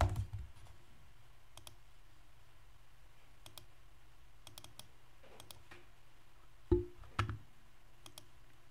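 Irregular computer mouse and keyboard clicks, with one duller thump about two thirds of the way through, over a faint steady low hum.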